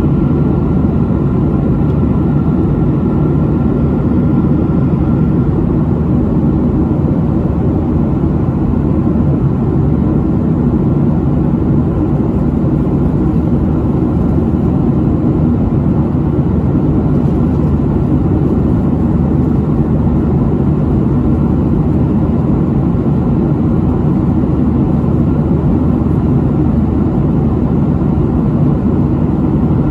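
Steady cabin noise of a Boeing 737 airliner in flight: the even drone of its jet engines and the rushing air, heard from inside the cabin.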